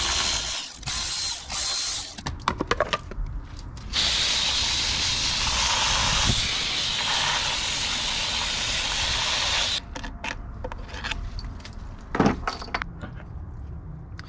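A power ratchet runs in short bursts on the bolts of an OMC Cobra sterndrive, ending in a fast run of clicks. Then a garden-hose spray nozzle hisses steadily for about six seconds as water washes the outdrive. After that come scattered clicks and knocks as the water pump housing is handled.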